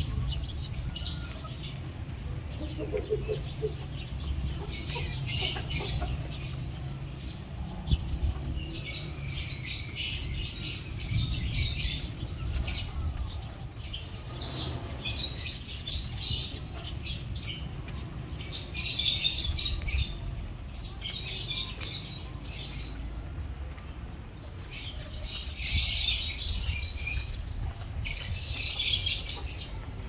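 A flock of house sparrows chirping, with dense chatter coming in repeated loud bursts several seconds apart, and wing flutter as the flock takes off. A steady low rumble runs underneath.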